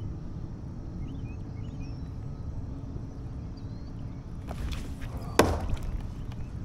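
A single sharp knock about five and a half seconds in, just after a brief rustle, over a steady low rumble. Faint bird chirps a second or two in.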